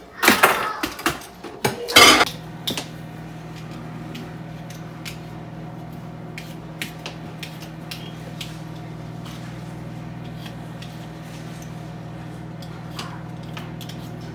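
Dishes and utensils clattering in the first two seconds, then a microwave oven switching on and running with a steady hum, likely melting butter. Faint scraping of hand peelers on potatoes runs underneath.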